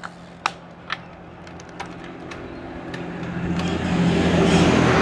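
A motor vehicle drawing close and passing, its engine hum and tyre noise getting steadily louder over the last few seconds. A few sharp clicks come before it.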